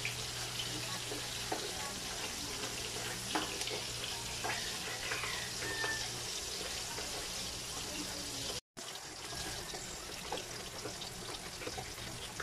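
Galunggong (round scad) frying in hot oil in an aluminium wok: a steady sizzle, with a few light clicks of a slotted metal spatula against the pan. The sound cuts out for a split second about two-thirds of the way through.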